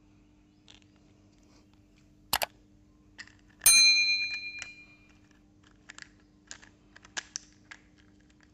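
A sharp click and, about a second later, a bell ding that rings out over about a second and a half: the sound effect of a subscribe-button animation. Small plastic clicks and taps of toy construction-vehicle parts being handled sound before and after it.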